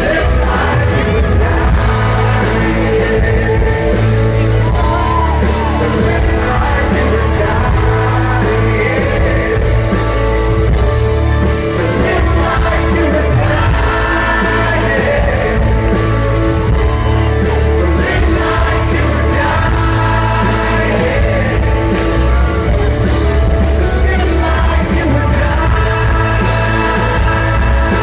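Live concert music: a male lead singer singing into a handheld microphone over a loud amplified band with strong bass and electric guitar.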